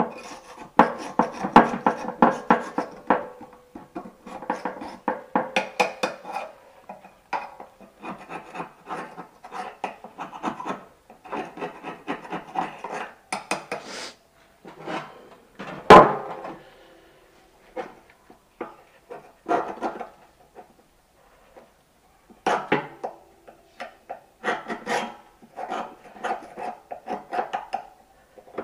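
Hard parts being rubbed, scrubbed and clattered in runs of quick strokes with short pauses, and one loud knock about sixteen seconds in.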